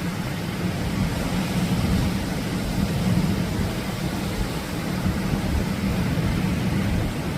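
Atlantic surf: a steady roar of breaking waves, heaviest in a low rumble.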